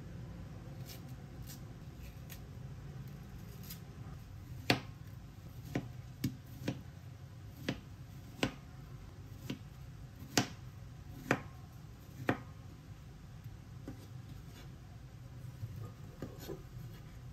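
Knife slicing through peeled dragon fruit, the blade knocking on the cutting board about ten times, roughly once a second, with softer handling and peeling clicks before and after.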